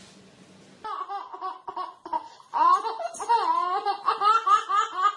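A baby laughing hard in quick repeated bursts, starting about a second in after faint room hum.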